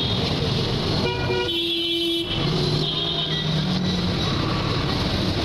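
Steady street traffic noise with vehicle horns sounding: several horn blasts of different pitch between about one and four seconds in.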